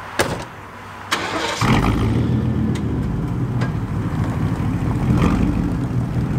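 A pickup door slams shut, a second later a starter cranks briefly, and the straight-piped Chevy 1500's engine catches. It then runs loudly and steadily through its exhaust, straight pipes fanned out to both sides, as the truck pulls forward.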